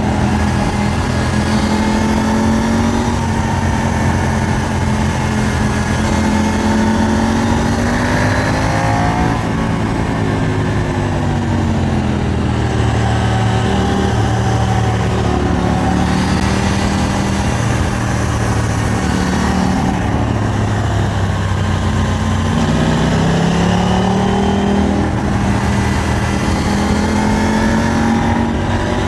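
KTM 890 Duke R's parallel-twin engine running under way on a motorcycle ride, its note slowly falling and rising a couple of times as the throttle changes, over steady wind rush.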